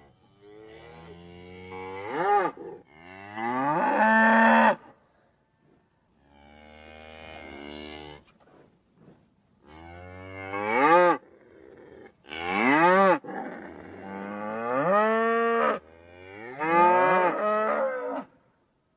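Cartoon cow sound effect: a cow mooing about seven times in a row, long calls with short pauses between, several of them sweeping up sharply in pitch.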